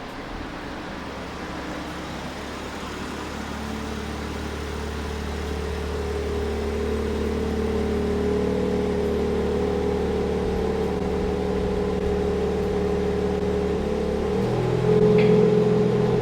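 BMW M4 (G82) with its S58 twin-turbo inline-six, driven at a steady pace: a steady engine and road drone that grows louder over the first half and changes pitch with a brief louder swell near the end.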